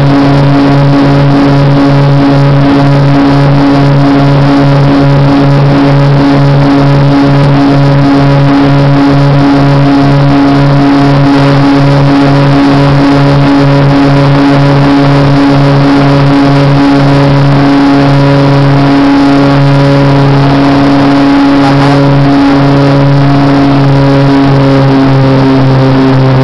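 A small propeller plane's engine and propeller droning loudly and steadily during takeoff, heard from inside the cabin, with a regular throb about twice a second.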